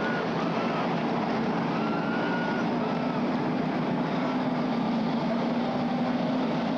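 Late model stock car V8 engines running at racing speed around a short oval, a steady, loud drone.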